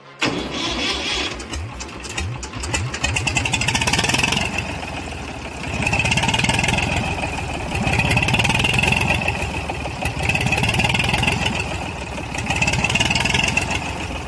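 Massey Ferguson tractor's diesel engine starting and running with its silencer removed, the open exhaust loud. It catches right at the start, then is revved up and eased off about four times.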